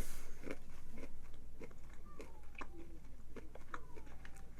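A person chewing something crunchy close to the microphone, short crunches coming about twice a second.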